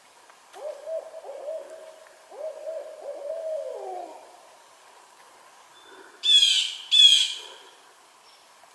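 An owl hooting: a series of low hoots in two phrases, the last hoot drooping in pitch. A few seconds later come two loud, short, high calls from another bird.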